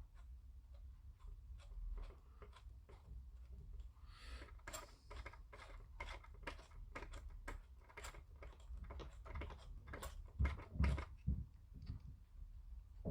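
A 1 mm drill bit turned by hand, boring out a hole in a plastic model kit part: irregular small clicks and scrapes, with a few dull knocks about ten seconds in.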